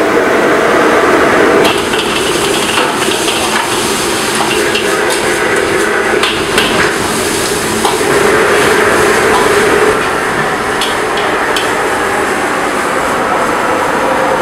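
Stir-frying in a wok: a metal ladle knocking and scraping against the wok with scattered sharp clanks, over sizzling food and a steady rush of kitchen noise.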